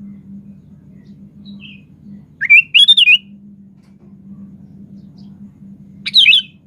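Sooty-headed bulbul (kutilang) singing: a phrase of quick, rising and falling whistled notes about two and a half seconds in, and a shorter phrase near the end, over a steady low hum.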